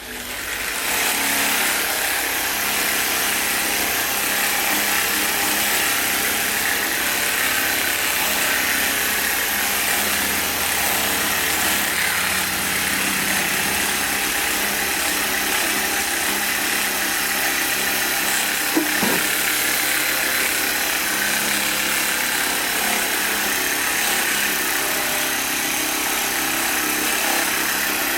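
A small electric motor is switched on and runs steadily, a whirring hum spread high in pitch, with one short knock about nineteen seconds in.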